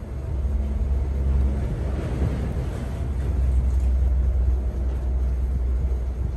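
A low, steady rumble that grows louder about half a second in and then holds.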